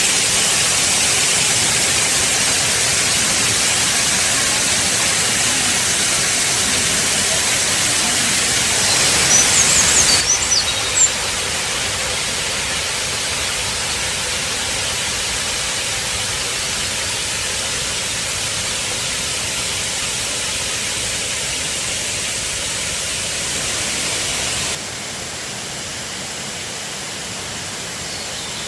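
Shiraito Falls, a wide curtain waterfall, rushing steadily. The rush steps down abruptly in level twice, about ten seconds in and near twenty-five seconds, with a few brief high sounds just before the first drop.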